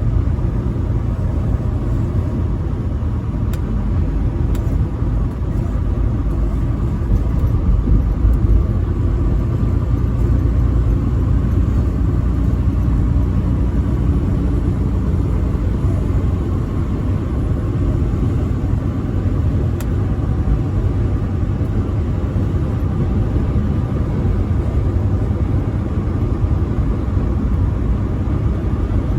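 Tractor-trailer truck cruising on the interstate: a steady low rumble of engine and road noise, with a faint steady whine above it.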